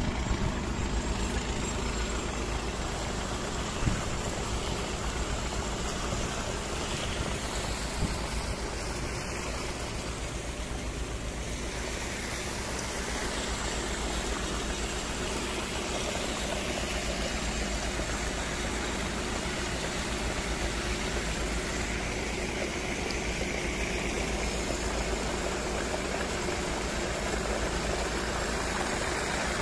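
Tractor diesel engine running steadily at the PTO, driving a 6x6 water pump, with the rush of a heavy stream of water pouring out of the discharge hose. Two brief knocks come about four and eight seconds in.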